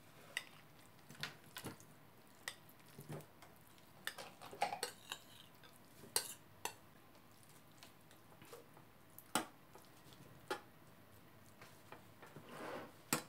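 Metal spoon clinking and scraping against a glass bowl and a metal cake ring as salad is spooned into the ring and spread: a dozen or so scattered light clicks with soft scraping between them.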